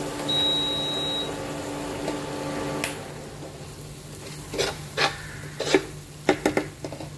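A metal spoon scraping and knocking against a nonstick frying pan as a thick chocolate mixture is stirred on an induction cooktop, in a run of sharp scrapes in the second half. Near the start, a short high beep, which fits the induction cooktop's touch panel being pressed, over a steady low hum.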